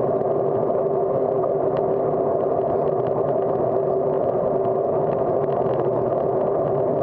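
Steady noise of a bicycle rolling on asphalt, picked up by a handlebar-mounted camera: wind and tyre noise with a constant hum and faint scattered rattles.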